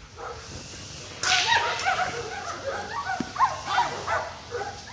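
German Shepherd dog yipping and whining in a quick run of short, high calls, starting about a second in with a brief rush of noise.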